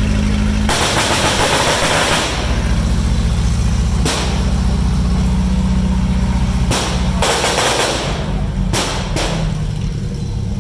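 A heavy vehicle engine running steadily at low revs, broken by a long noisy burst about a second in and then several sharp bangs of battle-display gunfire.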